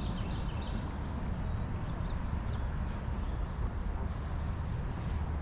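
Creek water running steadily, a full low rush, with a few short high chirps near the start and a brief brighter hiss about four seconds in.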